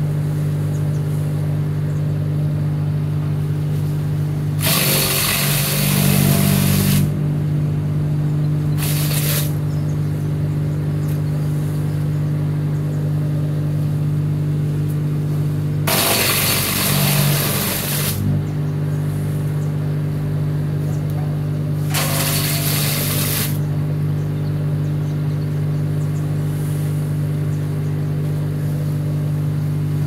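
Hansa C3e 2000 W electric wood chipper running with a steady hum, chewing up fresh-cut green branches in four loud bursts of shredding as they are fed into the hopper, the third-long one about sixteen seconds in.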